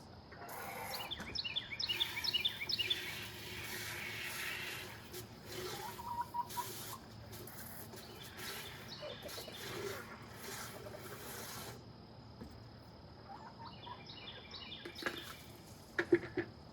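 Farm birds calling: quick runs of high chirps near the start and again near the end, over a steady rushing hiss that stops about 12 seconds in.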